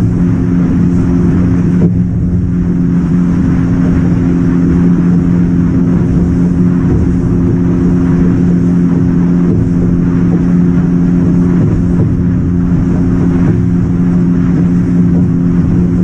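Fishing boat's engine running steadily under way, a constant low drone at an unchanging pitch, mixed with a steady rush of wind and water.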